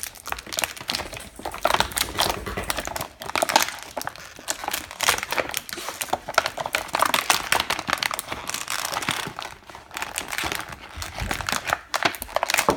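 Toy packaging crinkling continuously as it is handled and opened, with many irregular small crackles.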